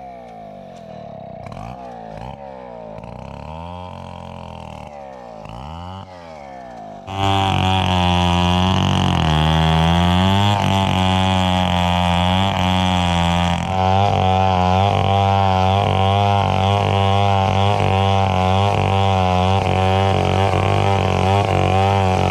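Stihl two-stroke chainsaw ripping a log lengthwise into boards. For about seven seconds it revs up and down at some distance, then it runs loud and steady at full throttle, cutting along the log.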